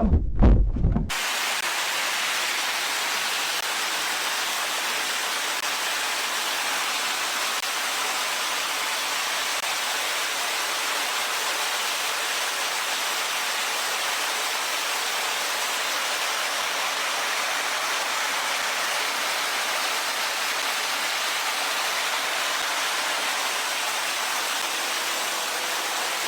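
A loud burst in the first second, then a steady, even hiss like static that does not change in level or character for over twenty seconds.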